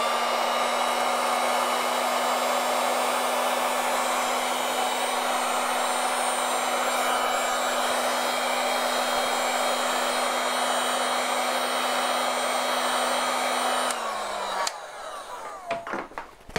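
Heat gun running steadily, a rushing blast of air over a steady motor hum, softening hot glue on a battery pack. It is switched off about fourteen seconds in, its hum sinking away as the fan spins down, followed by a few light handling clicks.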